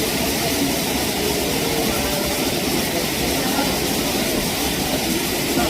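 Steady rushing of a waterfall's falling water, an even hiss with no breaks.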